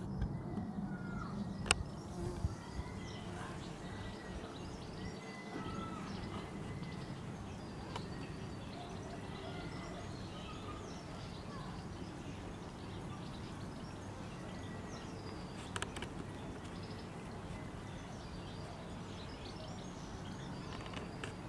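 Wild birds chirping and calling on and off over steady low background noise, with a sharp click about two seconds in.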